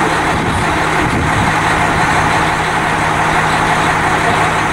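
Diesel engine of a Mount Washington Cog Railway locomotive running steadily, with a steady low hum under an even noisy rumble.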